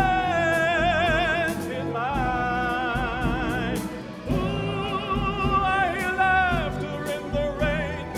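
A tenor singing with a plucked-string orchestra of mandolins, mandolas and guitars: three long held notes with wide vibrato, the last one sliding down at its end.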